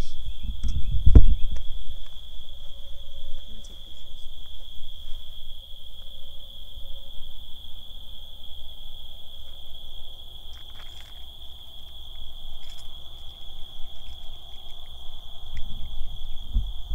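Crickets chirping in one steady high-pitched drone throughout, with a few heavy low thumps about a second in and again near the end.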